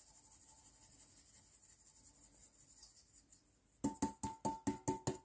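Faint patter of salt and ground pepper shaken from a small stainless-steel bowl onto chopped meat, then, near the end, about eight quick, ringing taps on the metal bowl to knock out the last of the seasoning.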